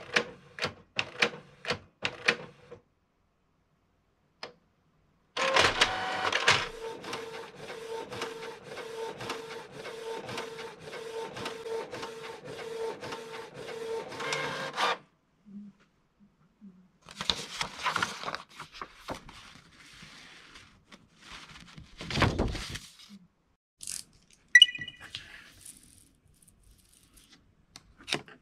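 Canon TS3130 inkjet printer printing a page: clicks and a short whir as it starts, then about ten seconds of the print head shuttling steadily back and forth, followed by a few shorter mechanical runs and clunks as the page feeds out.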